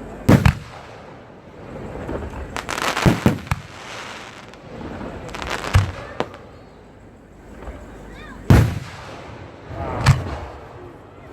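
Fireworks going off: a quick pair of booms near the start, a spell of crackling bangs about three seconds in, then single booms a few seconds apart.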